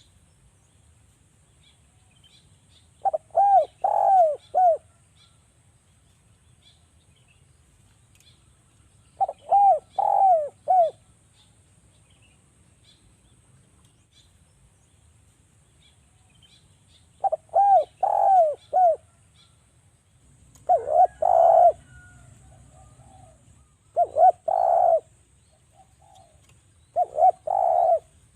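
Spotted dove (derkuku) cooing in short phrases of three or four notes, the first three phrases about seven seconds apart and the last three following closely, with faint high chirps between.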